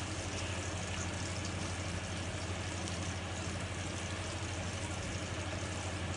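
Steady low electric motor hum, unchanging in pitch and level, with a faint hiss above it.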